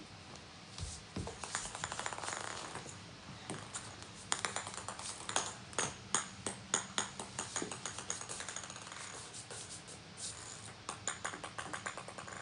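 Small plastic balls bouncing and clattering on a wooden floor as a cat bats at them, in runs of light clicks, some drawing quickly together as a bounce dies away.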